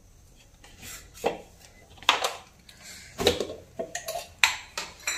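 Steel spoon clinking and scraping against a stainless-steel mixer-grinder jar, several sharp clinks about a second apart.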